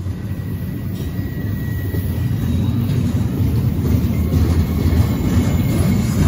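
Double-stack intermodal freight train's well cars rolling past at close range: a steady low rumble of steel wheels on rail, growing gradually louder.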